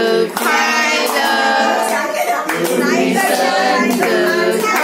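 A family group of adults and children singing a song together, with hands clapping in time.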